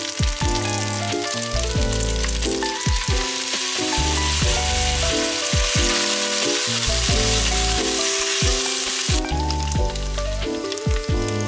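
Udon noodles and vegetables sizzling in a hot frying pan as ketchup sauce is stirred through them with a wooden spatula; the sizzle grows stronger about three seconds in and eases about nine seconds in. Background music plays throughout.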